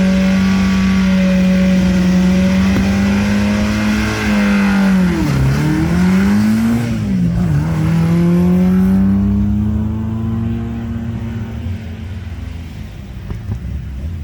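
Historic rally car engine held at steady high revs, then the revs dip sharply and climb again twice as the car launches and pulls away. The sound fades over the last few seconds.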